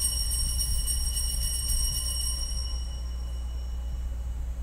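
Altar bells rung at the elevation of the host, a cluster of high ringing tones that fades out about three seconds in, over a steady low hum.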